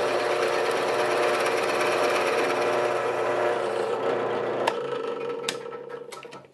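Drill press running, its bit boring into the end grain of a wooden block. About four and a half seconds in there is a click and the sound dies away, with a few sharp clicks near the end.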